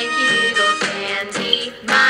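Background music with a regular beat about twice a second.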